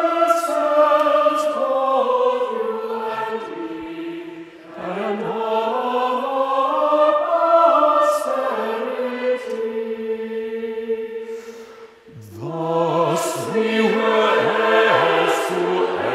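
Mixed choir of men's and women's voices singing a cappella in slow, sustained phrases. About twelve seconds in the singing dies away briefly, then a new phrase starts with the deeper voices stronger.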